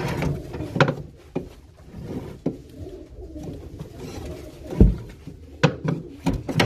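Baku fighting pigeons cooing, with scattered knocks and bumps, the loudest a low thump about five seconds in.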